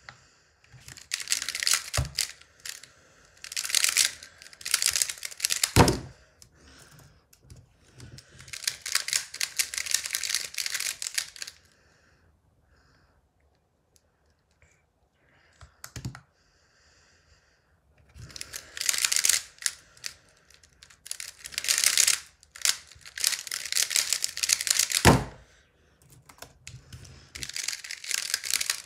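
Square-1 puzzle being turned fast in bursts: rapid plastic clicking and clacking as its layers twist and slice, with quiet gaps between bursts and a few single sharp knocks.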